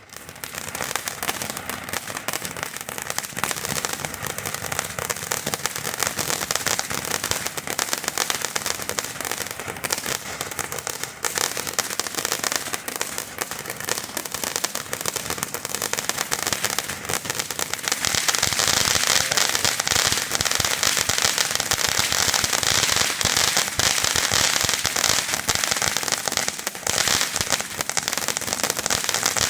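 Phantom Fireworks Captain Nuclear Fountain burning in a loud, dense crackle, a spray of rapid pops and hiss. It starts suddenly and grows louder and more intense about 18 seconds in.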